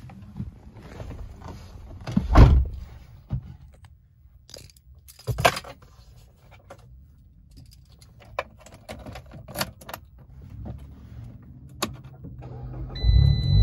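Car keys jangling with scattered knocks and clicks, the loudest about two seconds in. Near the end the Fiat 500 Abarth's 1.4-litre turbocharged four-cylinder starts with a low rumble, and a steady high tone comes on at the same time.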